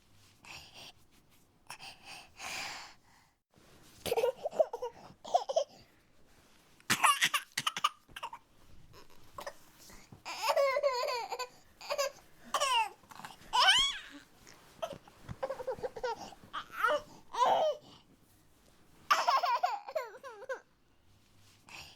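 Baby whining and fussing: short, high-pitched, wavering cries and whimpers with brief pauses between them.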